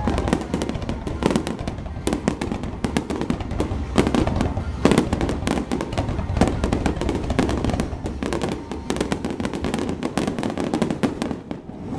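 Fireworks going off in a dense barrage: rapid crackling and many overlapping bangs over a low rumble, thinning out near the end.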